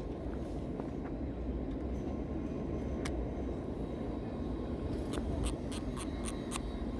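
Steady low rumble of city street traffic. Near the end, a quick run of about seven sharp clicks, a few to the second.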